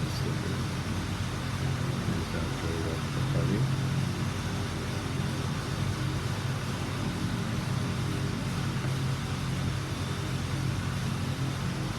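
Steady low mechanical hum over a constant background hiss.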